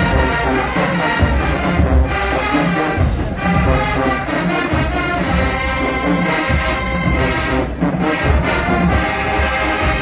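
HBCU marching band playing loud brass music, sustained horn chords over heavy low beats.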